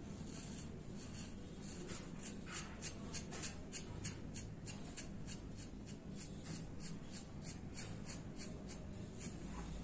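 Gillette 7 O'Clock safety razor with a Topaz Platinum blade scraping through lathered stubble, in short strokes that give a quick run of crisp scratches, several a second.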